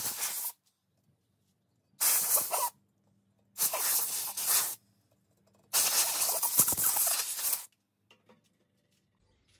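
Compressed-air blow gun giving four blasts of air, the last and longest about two seconds, blowing dirt off the cylinder liners.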